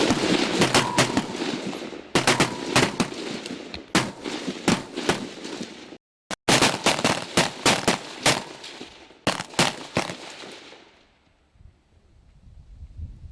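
Service rifles from several shooters on a firing line fire rapid, overlapping shots, each crack trailing into an echo. The firing thins out and stops about ten to eleven seconds in.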